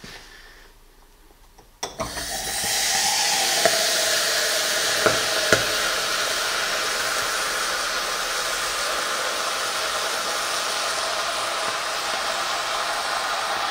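A red-hot metal ball lands in a glass of sugar-coated gummy worms with a sharp knock about two seconds in, and the candy sizzles steadily around it, with a few sharp pops in the first few seconds of the sizzle.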